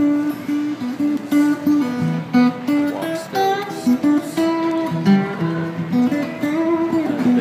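Background music: an acoustic guitar playing a melody of changing notes.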